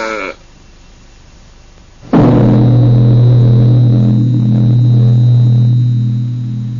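A single deep gong stroke about two seconds in, ringing on as a strong low tone with a slow pulsing beat above it, at about two pulses a second, and fading toward the end.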